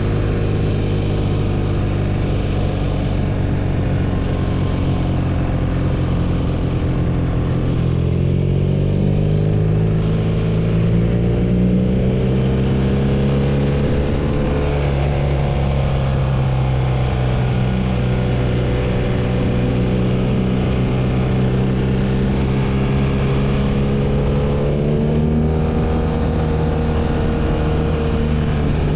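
BMW R nineT's air/oil-cooled boxer twin engine running while the motorcycle is ridden. The engine note rises steadily about eight to twelve seconds in, then holds fairly even with small rises and falls, easing off slightly near the end.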